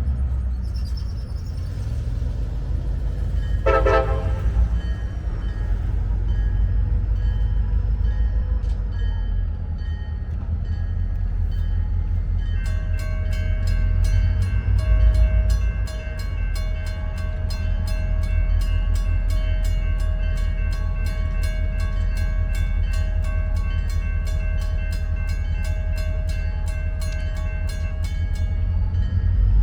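CSX diesel locomotives rumbling as the train gets under way, with a short horn toot about 4 s in. From about 13 s a bell rings rapidly and evenly, several strikes a second, stopping near the end.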